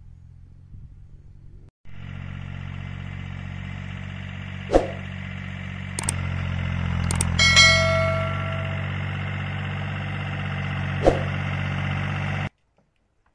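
Compact diesel tractor with a rear rotary tiller running as it drives slowly over tilled ground, the engine note swelling a little midway. Several sharp metallic clangs punctuate it, one ringing briefly. The engine sound comes in about two seconds in and cuts off suddenly about a second before the end.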